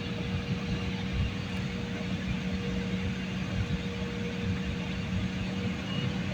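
Airliner engines running with a steady drone and two constant hums, the pitch holding level.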